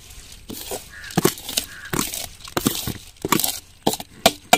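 A metal ladle scraping and knocking against an aluminium bowl as soaked rice is pushed out of it into a pot of boiling gravy. The sharp clinks come irregularly, about ten of them, the loudest near the end, with the soft slop of wet rice landing in the liquid.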